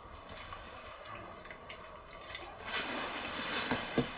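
Quiet room noise, then from about two-thirds of the way in a louder rustling and shuffling as a person in a padded jacket leans forward on a sofa and handles something.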